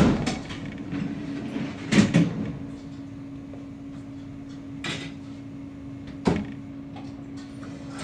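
Stationary Kintetsu commuter train as its sliding doors shut: a heavy thud at the start, then a sharp clunk about two seconds in and two lighter clunks later, over a steady low hum that sets in after the second clunk.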